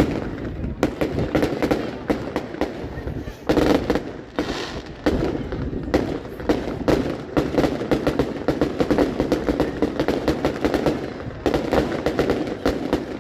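Fireworks going off in quick succession: a continuous barrage of bangs and crackles, with a louder burst of reports about three and a half seconds in.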